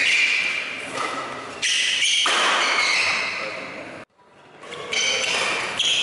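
Badminton rally in a large echoing hall: sharp racket-on-shuttlecock hits and high-pitched shoe squeaks, with spectators shouting. The sound cuts out briefly about four seconds in, then resumes.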